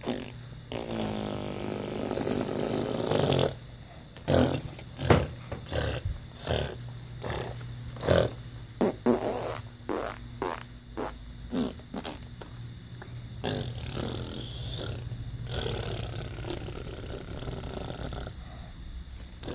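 A person making imitation fart noises: one long one of about three seconds, then a quick run of a dozen or so short blasts, followed by a softer, steadier stretch.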